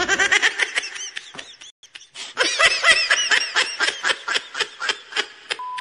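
High-pitched giggling laughter in quick repeated bursts, in two runs with a short break about two seconds in. A steady beep tone starts just before the end.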